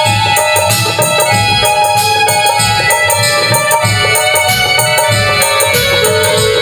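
Instrumental passage of a Bhojpuri song: harmonium and keyboard holding a melody over a steady dholak beat and jingling tambourine.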